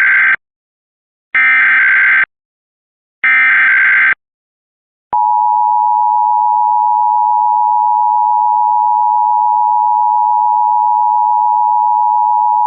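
Emergency Alert System test: the end of the first SAME digital header burst, then two more short bursts of data tones about a second apart. About five seconds in, the two-tone EAS attention signal (853 and 960 Hz together) starts and holds steady.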